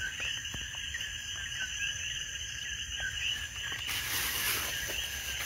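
Steady night chorus of crickets and frogs with short repeating calls, joined about four seconds in by a plastic bag rustling as it is handled.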